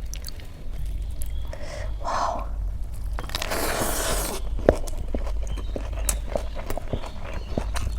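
Close-up eating sounds: chewing with sharp mouth and lip clicks, and a crunchy bite lasting about a second a little past three seconds in.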